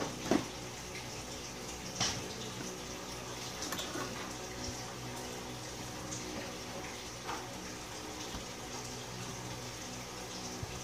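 Steady hiss of background noise with a faint low hum, and a few faint taps and clicks as a smartphone is handled and its screen tapped.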